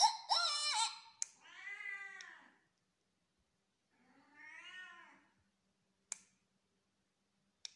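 Cat meowing: a short call at the start, then two longer meows, each about a second, that rise and fall in pitch, the second fainter. A single sharp click about six seconds in.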